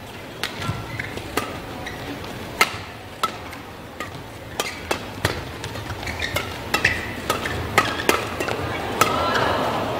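Badminton rackets striking a shuttlecock in a fast doubles rally: a run of sharp cracks, roughly one every half second to a second, with short squeaks of court shoes between them. Crowd noise swells near the end.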